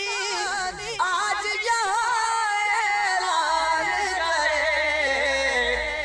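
Two men singing an Urdu kalam without words here, drawing out long ornamented notes that waver up and down; from about halfway in, one long held note slowly sinks in pitch.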